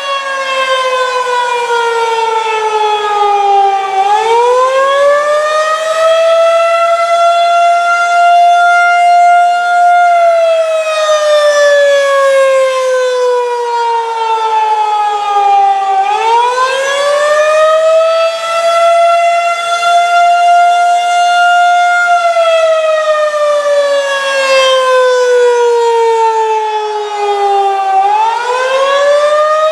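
Federal Signal 2001-SRN "Roundback" rotating tornado siren sounding the attack signal up close: its tone rises for about three seconds, holds high for a few seconds, then slides down for about six, repeating roughly every twelve seconds.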